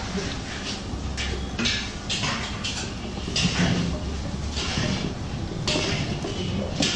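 Hands scooping and rubbing a dry flour-and-nut sweet filling in a steel bowl: a run of irregular gritty swishes and scrapes of the powder against the metal.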